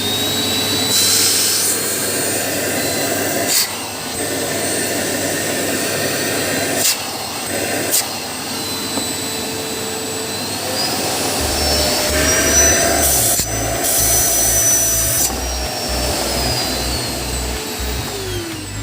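Polaris PVC 2016 vacuum cleaner running on a test after its clogged filters and motor compartment were cleaned: a steady motor whine that rises in pitch about two-thirds of the way through, then falls back near the end, with a few sharp knocks.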